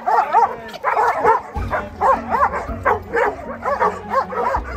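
Dogs barking and yipping excitedly: a rapid run of short, high barks, about three a second, some overlapping.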